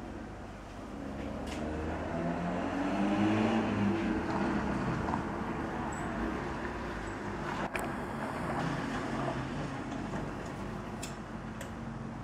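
Road traffic: a motor vehicle passes, its engine note swelling and then fading over a few seconds above a steady low traffic hum.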